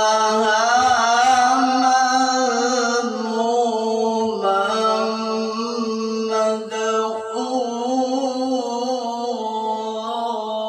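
A male qori's solo voice holding one long, ornamented note in melodic Arabic recitation, the pitch held nearly steady with small trills and wavers, ending near the end.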